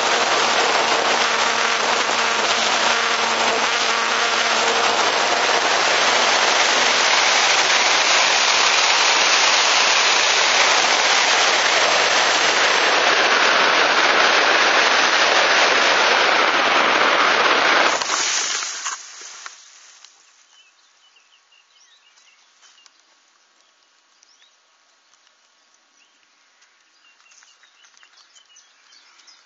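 Steady rushing wind noise on an Easyglider RC model glider's onboard camera in flight, with a faint steady hum in the first part. About 18 seconds in there is a sudden knock and the rush dies away within a couple of seconds as the plane comes down into tall grass, leaving faint rustles and ticks.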